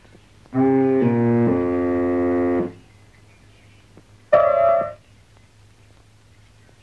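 Film-score music cue: a loud held chord that shifts twice in its first second and lasts about two seconds, then a second short chord stab about four and a half seconds in.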